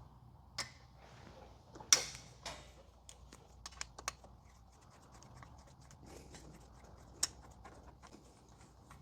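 Faint metallic clicks and scrapes of an 8 mm hex key loosening and backing out a bolt on a motorcycle. There are a few sharper clicks, the loudest near the start and about two seconds in, and a run of small ticks in the middle.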